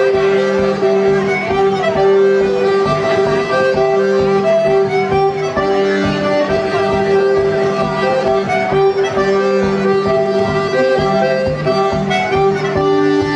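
Organetto (Italian diatonic button accordion) played solo: a changing melody over held notes, with a rhythmic pulsing bass.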